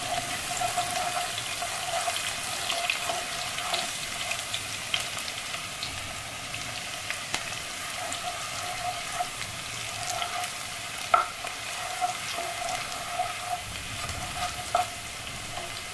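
Sliced onion frying in hot oil and ghee in a nonstick pan: a steady sizzle, with a wooden spatula stirring and tapping against the pan now and then, the sharpest tap about eleven seconds in.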